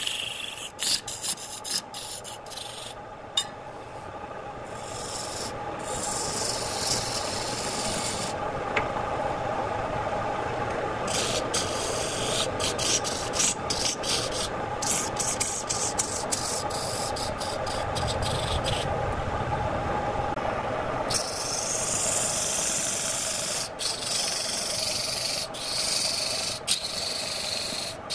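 Electric wood lathe humming steadily while a hand-held turning chisel cuts a spinning redwood blank, a hissing scrape of tool on wood. The cutting hiss comes and goes as the tool is pressed in and eased off, and twice drops out for a couple of seconds while the motor hum carries on.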